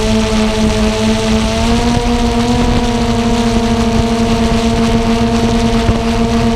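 Xiro Explorer G quadcopter's motors and propellers humming steadily as it hovers, with a whirring haze under the hum; the pitch steps up slightly about two seconds in.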